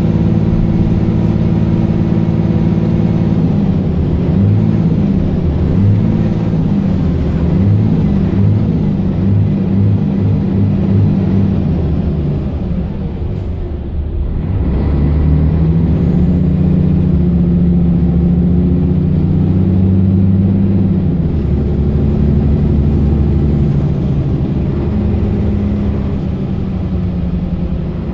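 Mercedes-Benz Citaro O530 LE bus's 12-litre OM457hLA diesel engine heard from inside the passenger cabin, revved up and down repeatedly for several seconds, then pulling steadily at higher revs before easing off near the end.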